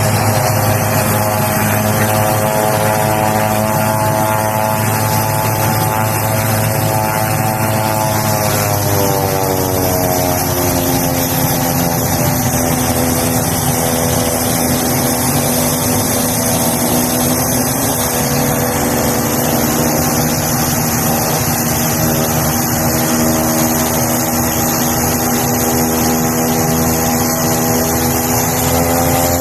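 Propeller aircraft's engines running on the tarmac with a steady high whine. The engine note drops in pitch about a third of the way through, holds, then rises again near the end as the power setting changes.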